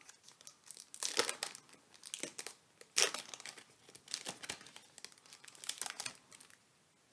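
Foil wrapper of a Pokémon trading-card booster pack crinkling and tearing as it is pulled open by hand, in a run of short bursts, the sharpest about three seconds in. The sound stops a little before the end.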